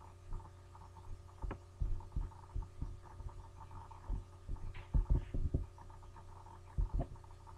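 Steady low electrical hum with irregular soft knocks and clicks, a quick cluster about five seconds in and a pair near the end: a computer being clicked and handled near its microphone.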